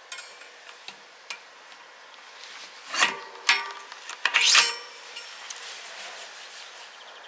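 Metal bicycle parts being handled and fitted: a few light clicks, then loud clinks and knocks with brief metallic ringing, clustered about three seconds in and again around four to four and a half seconds in.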